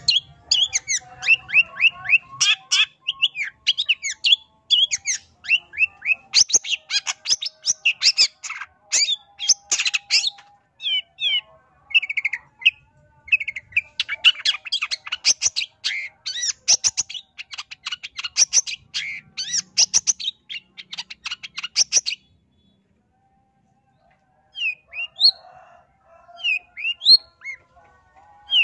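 Long-tailed shrike (pentet) singing a fast, unbroken stream of varied chirps, glides and rapid trilled notes. About 22 seconds in it stops for a couple of seconds, then resumes with sparser separate calls. This is the continuous 'gacor' singing of a shrike in full song, used as a bait song to provoke other shrikes to answer.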